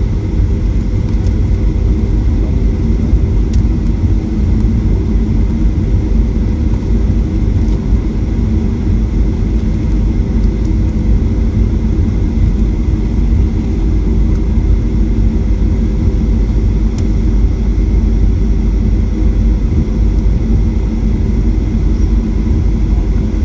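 Steady cabin noise inside a Boeing 737-800 taxiing after landing: a deep, even rumble from the CFM56 engines at taxi power and the airframe rolling over the taxiway, with faint steady hums above it.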